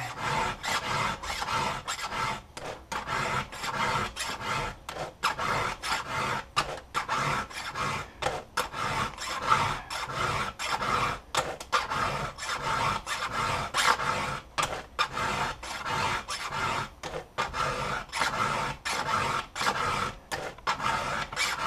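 Round chainsaw file rasping across the cutters of a skip-tooth saw chain in steady, repeated strokes: a quick touch-up sharpening of teeth dulled from cutting near rocks.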